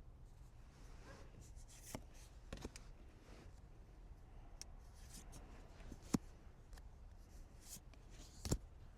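Cards and their packaging being handled close to the microphone: soft sliding and rustling, with a few sharp taps and clicks, the loudest about six seconds in and near the end.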